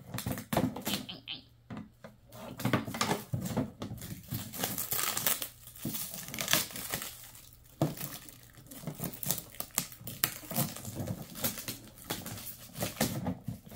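Clear plastic wrap crinkling and tearing as it is pulled off a hard plastic storage case, in a rapid, irregular run of crackles.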